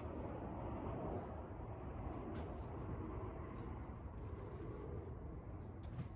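Steady rumble of an airplane passing overhead, slowly fading and cutting off abruptly near the end.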